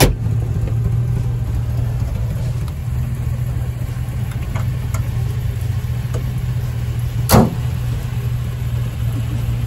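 Car engine running with a steady low hum, broken by a sharp click at the very start and a louder knock about seven seconds in.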